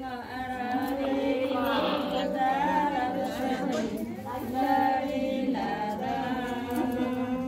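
A group of women singing a traditional wedding song together, several voices overlapping in long, held lines.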